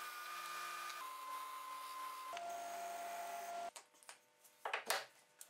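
Disc sander running with beech wood parts pressed against the disc: a steady whirring hiss whose pitch steps a couple of times. It stops a little past halfway, followed by a few sharp wooden knocks as the pieces are handled and set on the bench, the loudest near the end.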